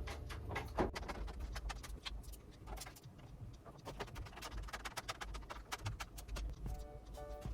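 Screws being driven by hand into the metal power-supply mount of a PC case: a run of light clicks and scrapes. Faint background music comes back near the end.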